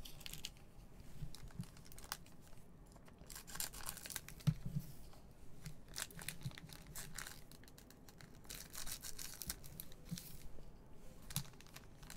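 Foil trading-card pack wrappers crinkling and tearing as they are handled and opened, with scattered sharp clicks. The crinkling is louder around four seconds in and again around nine seconds in.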